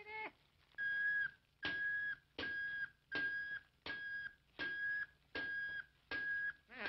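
Cartoon teakettle steam whistle tooting in short, even blasts, about four every three seconds. Each toot is one steady high note with some hiss and a slight drop in pitch as it ends.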